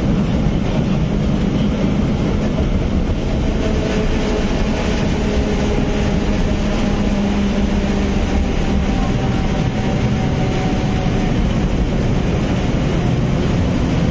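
A 1914 tram running along street track, heard from inside its wooden cab: a steady rumble and rattle of the moving car on the rails, with a faint steady hum through the middle.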